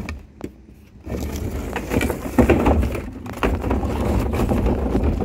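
Plastic wheeled trash cart being rolled across a concrete walk, its wheels rumbling steadily with scattered knocks, starting about a second in.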